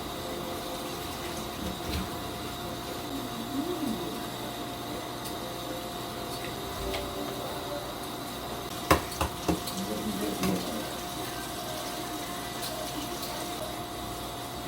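Café background: a steady machine hum with faint distant voices, and a few sharp clinks of dishes or cutlery about nine seconds in.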